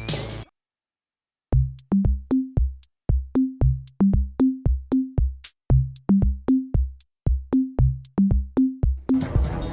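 Electronic drum-machine beat: short pitched drum hits alternating between a low and a higher note, in a quick even rhythm of about three hits a second. It starts after about a second of silence, and fuller backing music joins near the end.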